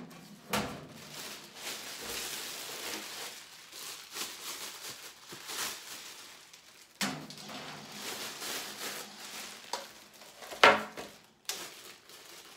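Plastic packaging bags rustling and crinkling as metal air-fryer trays and racks are pulled out of them, with a few sharp knocks of metal trays, the loudest a little before the end.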